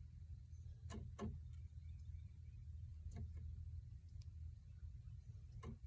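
A handful of light, unevenly spaced clicks and taps from fishing tackle being handled while a Texas rig is put together, over a low steady rumble.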